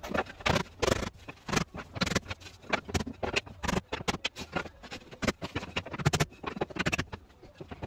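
Irregular light knocks, taps and scrapes, several a second, from hand work on a plywood floor panel.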